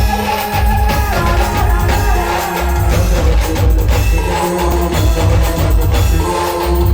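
Indian brass band playing an instrumental passage: brass horns holding melody notes that step to a new pitch every second or so, over a heavy, driving drum beat.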